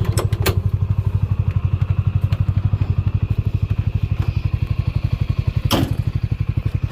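Farm buggy's engine running steadily at low speed with an even, rapid pulse, with a few knocks and rattles from the buggy over rough ground, the loudest about six seconds in.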